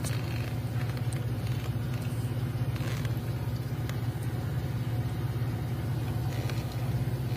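The 1999 Blazer's engine idling, a steady low hum with a few faint ticks.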